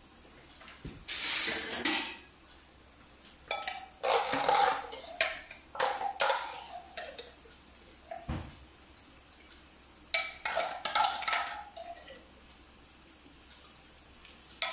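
Kitchen dishes and utensils clattering and clinking in three short bouts: about a second in, from about four to seven seconds, and around ten to eleven seconds.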